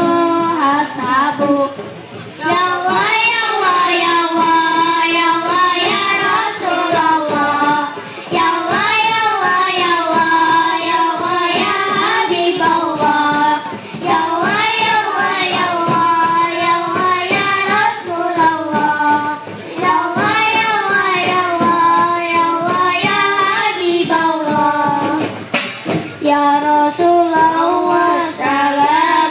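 Children's marawis group performing an Islamic devotional song: young voices singing long, held phrases through microphones with a pause every few seconds, over marawis hand drums and a large bass drum.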